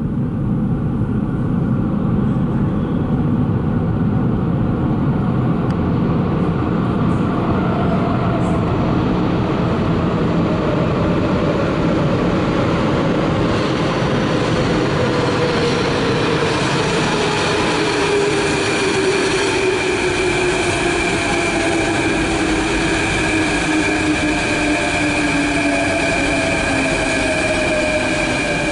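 Athens Metro electric multiple-unit train approaching through the tunnel and running into the underground station: a loud, steady rumble, joined in the second half by an electric whine that falls steadily in pitch as the train slows.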